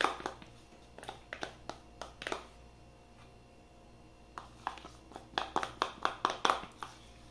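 A metal spoon scraping and clicking against the inside of a bowl as it scoops out a thick condensed-milk filling: a few short scrapes in the first couple of seconds, then a quicker run of them from about four and a half seconds until near the end.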